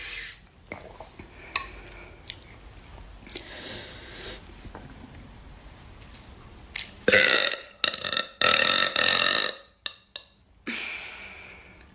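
Girls burping: a couple of faint burps in the first half, then two long, loud burps about seven and eight and a half seconds in, and a shorter one near the end.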